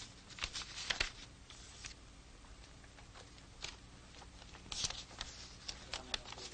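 Sheets of paper rustling and crinkling as they are picked up and handled, in short scattered bursts, over a faint steady low hum.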